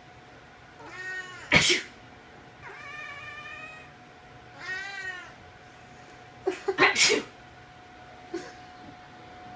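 Siamese cat meowing repeatedly in drawn-out calls, in protest at a person's sneezing. Two loud sudden bursts break in, one about a second and a half in and a cluster about seven seconds in.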